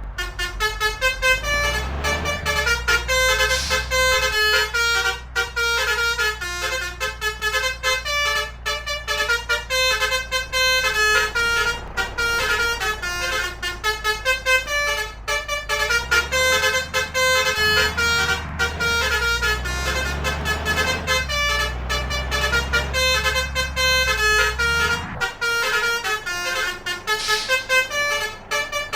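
Indonesian bus 'telolet' basuri horns playing quick, melodic runs of notes, one note after another without pause, over the low rumble of road traffic.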